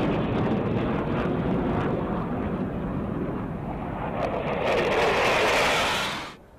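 Military jets flying past: steady jet engine noise that grows louder and brighter about five seconds in, then cuts off abruptly near the end.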